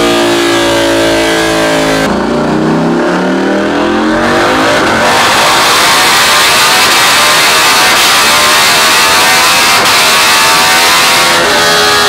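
KTM 890 Duke's parallel-twin engine breathing through an Austin Racing aftermarket exhaust, pulled up through the revs at full throttle on a dynamometer. About two seconds in the pitch sweeps steadily upward into a loud, dense high-rev note that holds until shortly before the end, when it changes back to a steadier tone.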